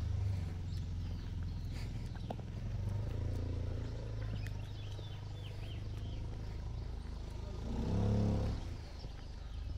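Outdoor rural ambience with a steady low rumble. A few short high bird chirps come around the middle, and about eight seconds in a large animal gives one low call, under a second long, the loudest sound here.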